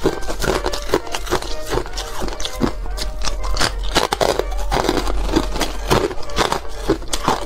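Ice chunks being chewed: a quick, irregular run of crisp crunches and crackles, over background music.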